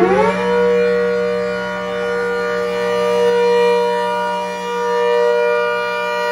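ACA Hurricane 130 rotating siren, supercharged by a Sutorbilt 4M Roots blower, finishing its wind-up in the first half second and then holding a steady chord of several tones at full power. Its loudness swells and fades slowly as the horn turns.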